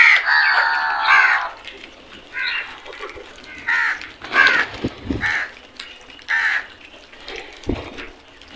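A flock of crows cawing: a long, loud harsh call at the start, then a string of shorter separate caws about a second apart.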